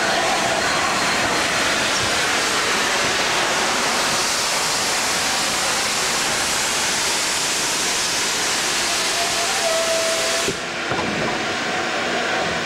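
Steam hissing steadily and loudly from LNER A4 steam locomotive 60009, with a brief steady tone about nine seconds in. About ten and a half seconds in, the hiss cuts off sharply and a duller, lower steady running noise follows.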